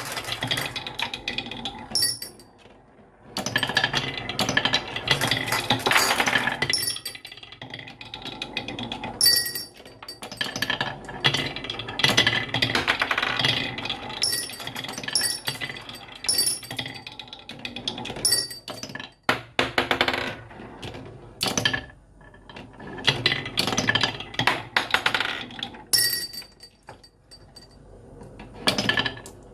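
Marbles rolling and rattling down a marble run, clicking and clinking against the track pieces and each other, in uneven runs with short lulls.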